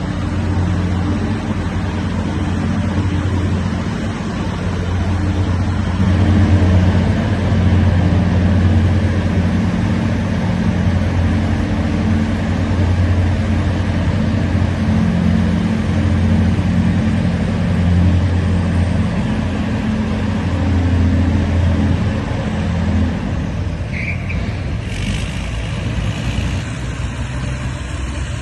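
Big Bud tractor's large Caterpillar diesel engine running hard under load, a steady deep drone that eases off about 23 seconds in. A short high-pitched tone and a hiss follow near the end.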